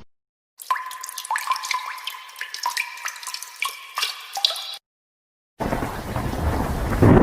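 Water-drip sound effect: a run of short pitched plinks and drops at varying pitches for about four seconds. After a brief gap, a loud steady rain-and-thunderstorm effect begins.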